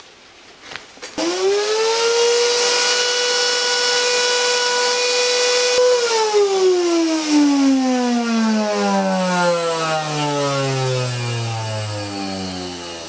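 Miele vacuum cleaner motor switched on about a second in, rising quickly to a loud steady whine, then switched off about six seconds in and winding down with a steadily falling pitch. This is the tremendous noise that the owner takes for motor imbalance from a fan whose holes are clogged with crumbled carpet-underlay foam.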